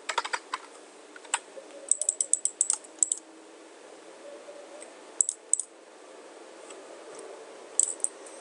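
Typing on a computer keyboard: short runs of sharp keystrokes with pauses between them, including a quick run of about eight taps around two seconds in.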